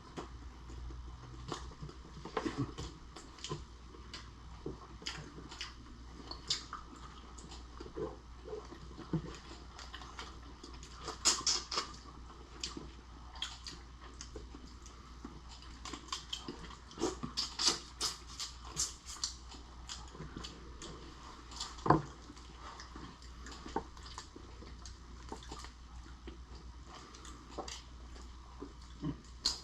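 Close-miked mukbang eating sounds: chewing and biting into cooked lobster and shrimp, with wet smacks and irregular sharp clicks. The clicks come thicker about eleven seconds in and again between sixteen and nineteen seconds, with one sharp loud click about twenty-two seconds in.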